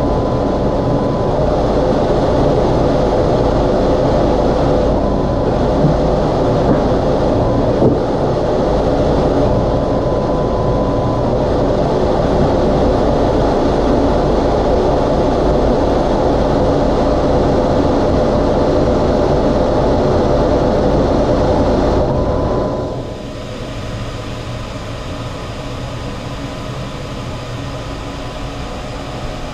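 Laser cutter running while it cuts plywood: a steady machine noise of its fans and air assist, with a few steady humming tones. About 23 seconds in the noise drops to a quieter steady level.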